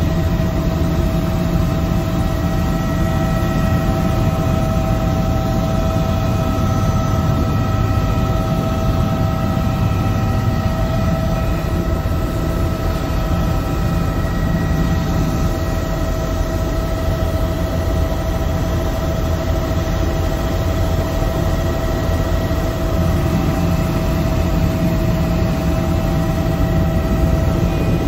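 Helicopter in flight heard from inside the cabin: a steady low rumble of rotor and engine with a constant whine over it.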